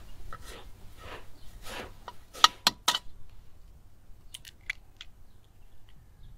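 Hands squeezing and turning salt mixed with rosemary in an enamel basin, a gritty crunching in repeated strokes for about three seconds, ending in a few sharp clicks. After that only a few faint light clicks.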